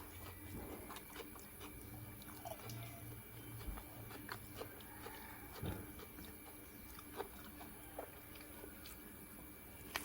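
A person chewing and biting food close to the microphone, with scattered small crunches and mouth clicks.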